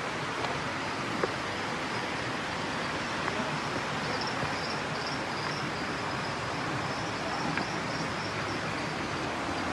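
Forest ambience: insects chirping in a pulsing high trill over a steady rushing noise, with a few faint clicks.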